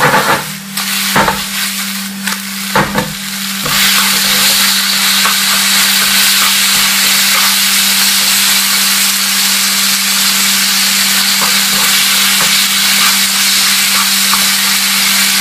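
Marinated chicken pieces sizzling in butter in a nonstick frying pan over very high heat. In the first few seconds the pan is shaken and the pieces stirred, with several knocks, then a steady frying sizzle as chopsticks turn the chicken. A steady low hum runs underneath.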